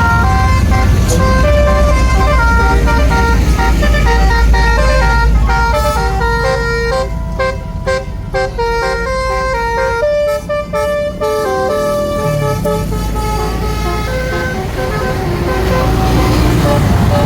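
A tour bus's basuri multi-tone horn plays a melody: a run of held horn notes stepping up and down in pitch. Under it the bus engine rumbles, fading in the middle and returning near the end.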